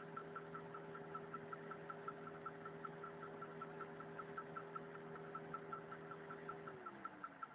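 VAZ 2103 engine running with a regular light knock, about five or six knocks a second, which the owner cannot tell is a fault or normal. A steady hum underneath drops in pitch and fades near the end while the knocking carries on.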